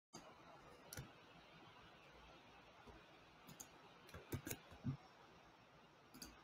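Near silence with a handful of faint, irregular clicks and soft knocks, like someone working a computer at a desk.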